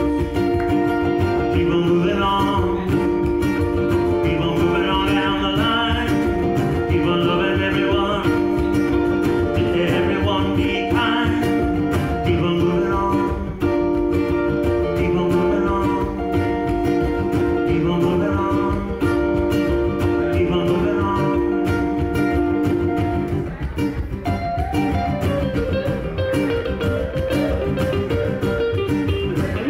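Two guitars playing a rock song live, with steady strummed rhythm chords and quick picked melody lines over them. About three-quarters of the way through, the playing briefly thins, then carries on with a changed figure.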